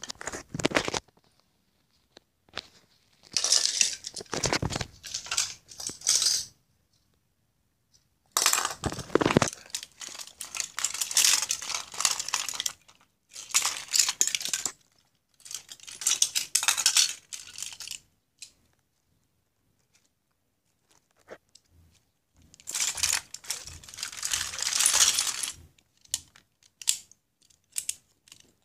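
Die-cast toy cars clinking and clattering against each other and the wooden floor as they are handled and shuffled, in several bursts a few seconds long with short pauses between.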